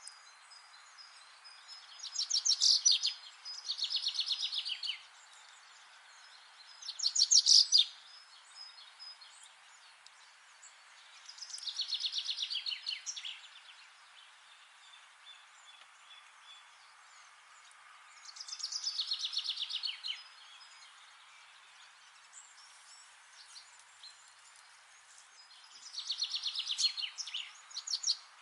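A songbird singing in rapid trilled phrases of quickly repeated notes, each phrase a second or two long and some dropping slightly in pitch, repeated about six times several seconds apart. A faint steady hiss lies underneath.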